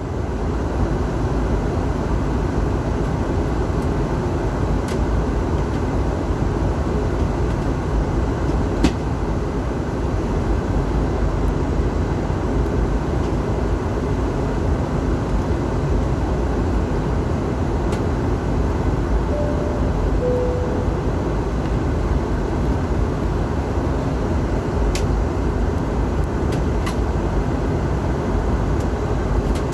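Steady cabin drone of an Airbus A320 in flight, the mix of jet engines and airflow heard from inside the passenger cabin, with a few faint clicks.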